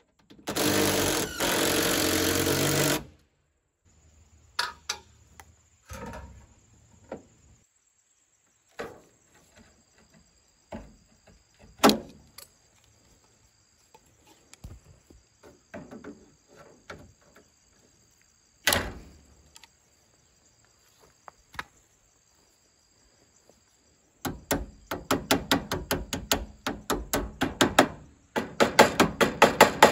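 A cordless impact driver rattles for about two and a half seconds as it drives a screw through copper drip edge into the wooden fascia. This is followed by scattered sharp clicks and handling sounds as the copper is trimmed with hedge clippers. Near the end comes a fast run of light hammer strikes, several a second, on the copper drip edge.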